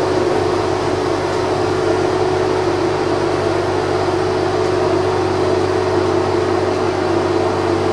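Metro train running along the track, heard from inside at the front: a steady rumble with a constant hum that does not change pitch.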